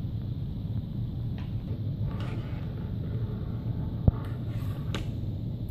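Steady low rumble of room background noise, with a few faint clicks as the motor cable and its plastic connector are handled, and one sharp click about four seconds in.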